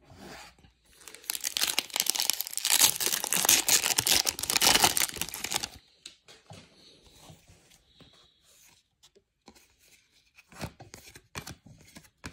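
Wrapper of a Bowman Draft baseball card pack being torn open and crinkled, loud and crackly for about five seconds. After that come quieter scattered clicks and rustles as the stack of cards is handled.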